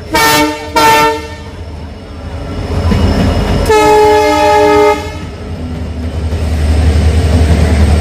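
Approaching train's locomotive horn, sounding two short blasts and then one longer blast about four seconds in. After the horn, the low rumble of the oncoming train grows steadily louder.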